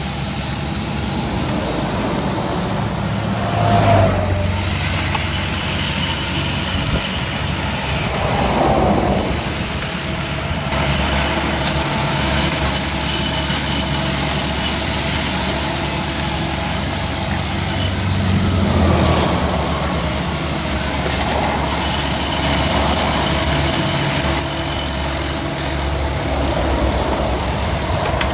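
Multihog tool carrier's diesel engine running steadily under load, driving the hydraulic Mulag cable-barrier mower heads as they cut grass. The sound swells briefly a few times.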